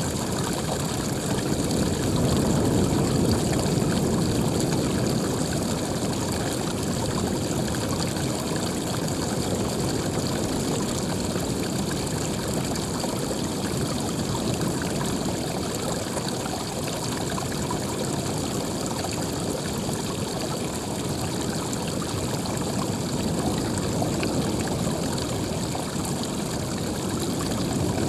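Steady rush of running water, a continuous even wash with only slight swells in level.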